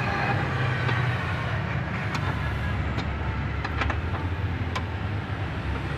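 Steady low rumble of a running vehicle engine, with a few faint, light clicks over it.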